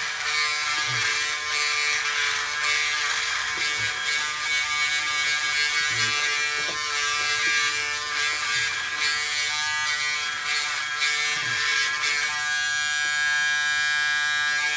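Braun Series 7 360 Flex electric foil shaver buzzing steadily as it is run over the stubble of a dry face.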